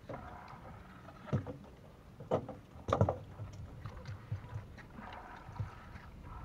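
Water splashing and sloshing as fish and eels are grabbed by hand in a metal bucket and dropped into a plastic water jug, with a few sharp knocks and slaps, the loudest about three seconds in.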